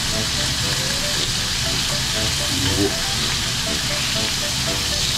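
Beef slices, shrimp and sausage sizzling steadily on a hot electric tabletop grill plate, a constant frying hiss.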